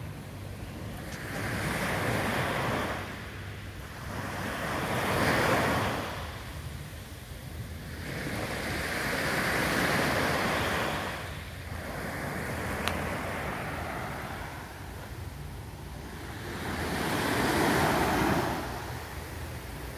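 Small waves on a calm sea breaking and washing up a sand beach. The surf swells and fades every few seconds.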